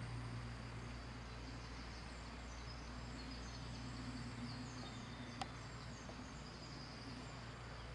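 Outdoor ambience: a steady low hum under faint, high chirping, with one sharp click about five and a half seconds in.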